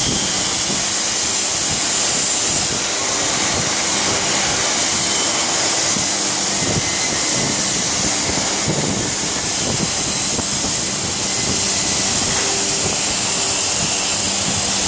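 Steady loud factory-floor machinery noise: a constant high hiss over a low hum, with no change throughout.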